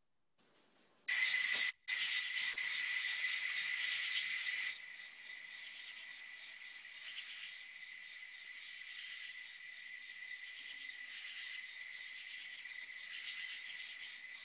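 A recorded chorus of crickets chirping in a monotonous, unbroken trill. It starts about a second in after near silence, cuts out for a moment shortly after, then drops to a quieter, steady level a few seconds later.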